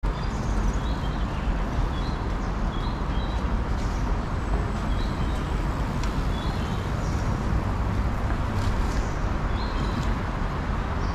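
Street ambience: a steady low rumble of city traffic, with birds giving short high chirps about once a second.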